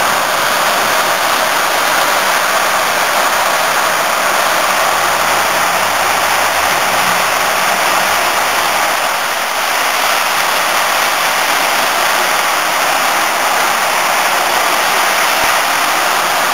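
Heavy downpour of rain, a loud, steady hiss.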